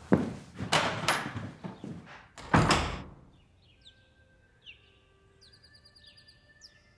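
A few loud knocks and rustling noises over the first three seconds, then a quieter stretch with birds chirping in short, falling calls.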